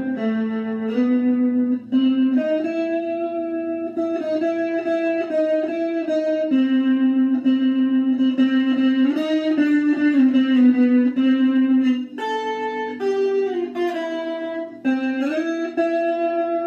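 Electric guitar played solo: a slow melodic line of held single notes that step up and down, a few of them bent or slid into.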